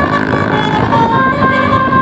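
Bus 'basuri' telolet horn playing a melody in held notes that step from pitch to pitch, over a steady low rumble.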